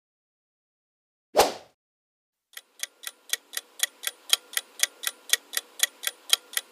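Ticking-clock countdown timer sound effect, even ticks about four a second that start about two and a half seconds in and rise in level over the first second. It is preceded by a single short transition sound effect about a second and a half in.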